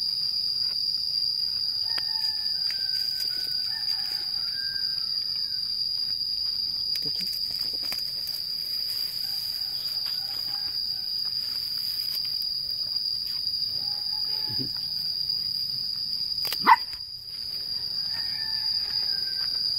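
Steady high-pitched insect drone, with faint short calls scattered through it and a single sharp knock near the end.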